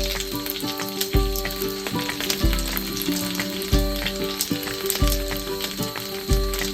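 Gyoza sizzling and crackling as they fry in a pan, under background music with a slow, heavy beat about every second and a quarter.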